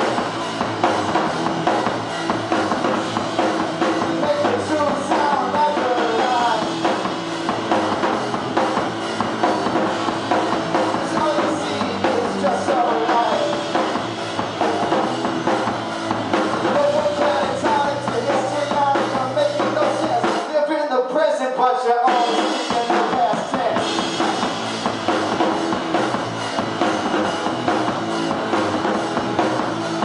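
Live two-piece rock band playing: drum kit and electric guitar, with a male voice singing over them. About two-thirds of the way through the low end drops out for a couple of seconds before the full band comes back in.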